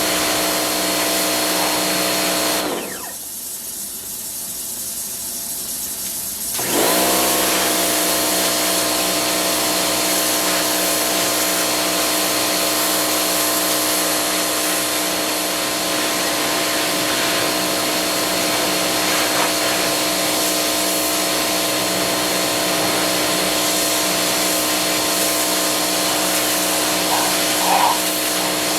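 Electric pressure washer running with a steady motor drone over a hiss. Its motor cuts out about three seconds in, as when the trigger is released, and starts up again about four seconds later.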